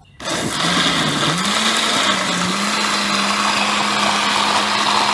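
Countertop blender switching on a moment in and running steadily, puréeing soaked guajillo chiles with their cooking water into a sauce. Its motor hum climbs in pitch over the first couple of seconds as it comes up to speed, then holds steady.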